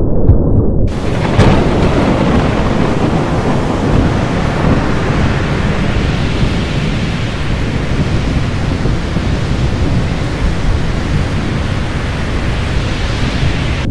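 Stormy-sea sound effect: a deep rumble, then about a second in a sudden loud, steady rush of storm noise with a sharp crack just after it and deep thunder-like rumbling beneath.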